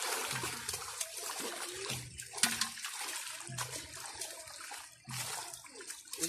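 Water splashing and sloshing in a shallow fish pond, with irregular splashes as netted fish thrash at the surface and people wade and handle the catch.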